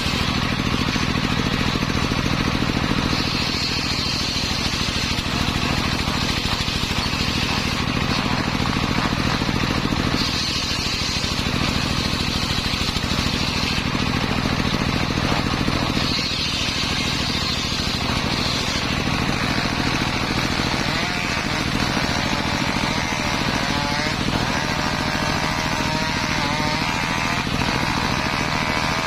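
Engine-driven homemade circular saw running steadily, its blade cutting through timber; a higher sawing whine rises over the engine drone a few times as the blade bites into the wood.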